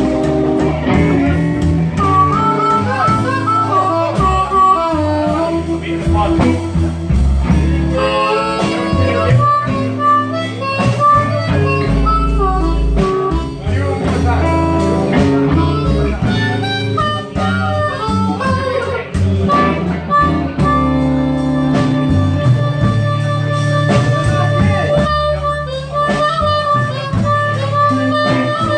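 Live blues band playing an instrumental break: a harmonica cupped against a vocal microphone takes the lead with long, bending notes over electric guitar, upright bass and drums.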